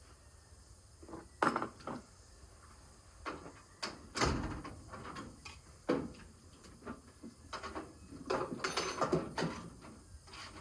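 Hand tools and metal car parts being handled: irregular knocks, clicks and scrapes, with the loudest knock about four seconds in and a cluster of clatter near the end.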